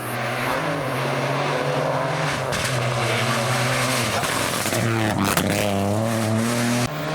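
Rally car engine driven hard, its pitch stepping up and down through gear changes, with a dip and climb in revs about five seconds in. The sound changes abruptly near the end.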